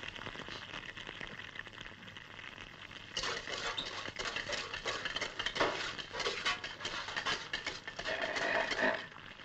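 Fire crackling and sizzling as a charred turkey burns in a metal roasting pan, a steady hiss that turns louder and denser with many sharp crackles about three seconds in.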